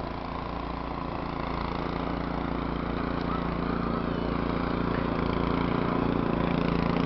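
An engine running steadily at an even pitch, growing gradually louder as it comes nearer.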